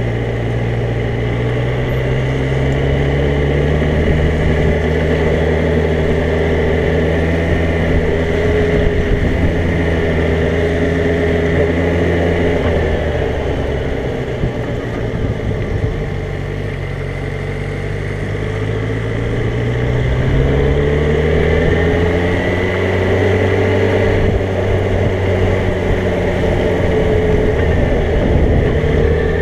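Motorcycle engine heard from the rider's own bike, running under the rider: the revs climb over the first few seconds and hold, drop back a little before halfway and stay lower and quieter for several seconds, then climb again about two-thirds in and hold.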